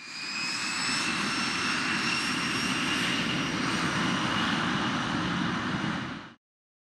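Jet airliner engines running, a steady rush of noise under a high whine that slowly rises in pitch. It fades in at the start and fades out near the end.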